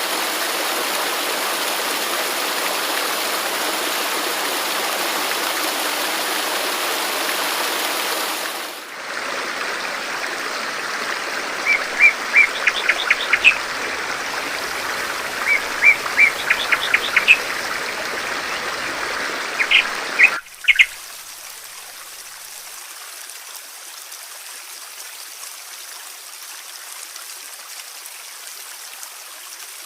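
Steady rushing water of a stream or waterfall. About nine seconds in, the recording changes to flowing water with a small bird chirping in quick runs of short, high notes, three times. Around twenty seconds in, it cuts to a quieter, steady trickling stream.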